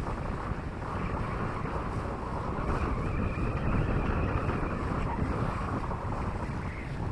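Wind buffeting the microphone on the bow of a motor yacht under way, a low uneven rumble that swells a little midway.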